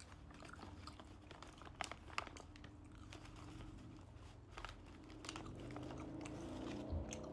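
Close-up chewing of a piece of dried mango: faint mouth sounds with scattered sharp clicks, the loudest a pair about two seconds in.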